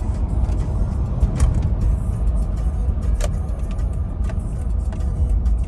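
Steady low rumble of engine and road noise inside a Toyota Land Cruiser's cabin on a test drive, with a few faint clicks. The A750F automatic transmission, just refilled with fluid, is driving with no slipping and running smooth.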